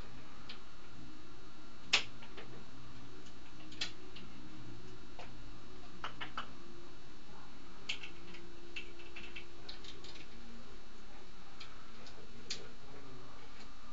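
African grey parrot making scattered sharp clicks and taps, irregularly spaced, with one louder click about two seconds in.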